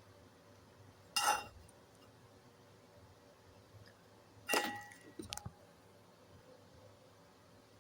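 Two short clinks with a brief ring, about a second in and again about four and a half seconds in, the second followed by a few smaller taps, over faint steady room noise.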